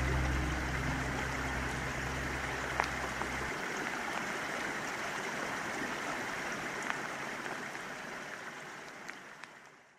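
Water ambience: a steady hiss of running water with a few faint drip-like clicks, under the last low notes of music that stop about three and a half seconds in. The whole sound fades out near the end.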